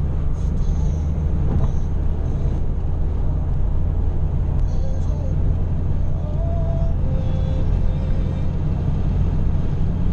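Steady road and engine rumble inside a car cruising at motorway speed, low and unchanging throughout.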